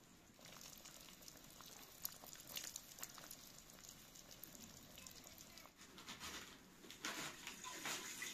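Faint scattered clicks and pattering from a pot of chicken, carrot and plum stew simmering. About seven seconds in comes louder rustling and pouring, as milk is poured into a cooking pot and a head of cabbage is handled.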